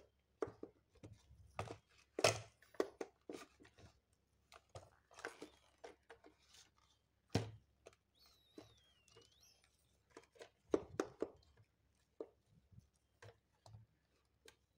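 Carded die-cast toy cars in plastic blister packs being handled and set down on a cutting mat: scattered light taps and soft rustles of card and plastic, irregular, with a sharper tap about two seconds in and another past seven seconds.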